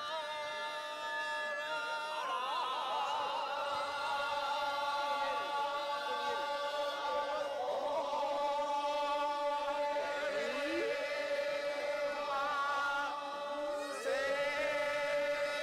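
Choir-like music of long held tones with a wavering, sliding melody over them, briefly dropping away and coming back in near the end.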